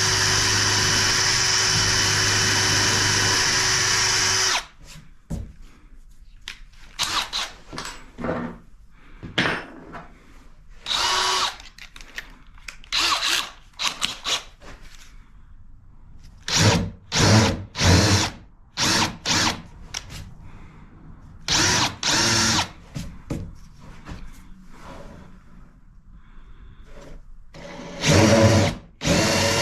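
Power drill run steadily, stopping about four and a half seconds in, then triggered in many short bursts of under a second each, with light knocks and handling sounds in the gaps.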